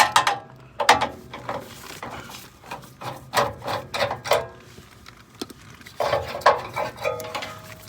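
Clinks, knocks and rattles of metal parts and tools being handled in an air handler's electrical compartment while its run capacitor is taken out and checked. The sounds come in several irregular clusters with quieter gaps between them.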